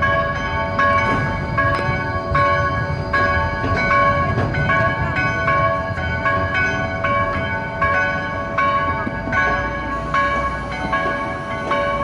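Church bells ringing together in a full peal, strokes following one another steadily and overlapping so that several ringing tones hang on between strikes.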